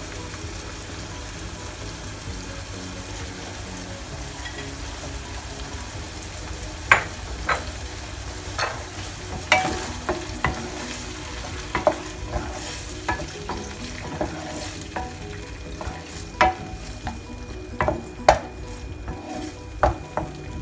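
Ground pork and coconut cream sizzling in a nonstick wok; about seven seconds in, a wooden spatula starts stirring, with repeated sharp taps and scrapes against the pan.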